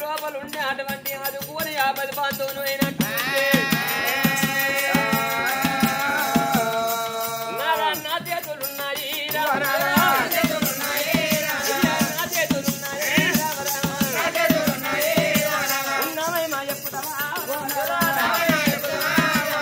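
Oggu Katha folk music: a voice sings long held notes, then shorter phrases, over a steady drum beat and constant bell-like jingling.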